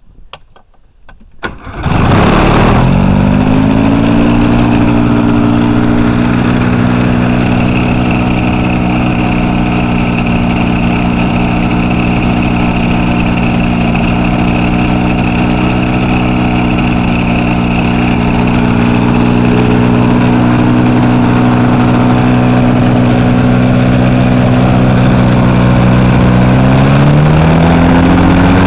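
Rotax 532 two-cylinder, rotary-valve two-stroke engine starting on its electric starter about two seconds in. It catches, flares, and settles to a steady idle while turning a 60-inch three-blade propeller. Near the end the revs rise a little and hold higher.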